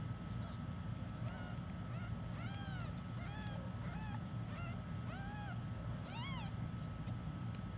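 Week-old kittens mewing: a string of about ten short, high calls, each rising and falling in pitch, over a steady low hum.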